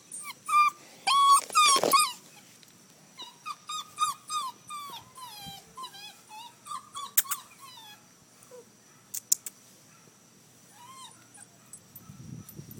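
Doberman pinscher puppy whining in a string of short, high cries, thick in the first two seconds and again from about three to seven seconds in, with one more cry near the end. A few sharp clicks come in between.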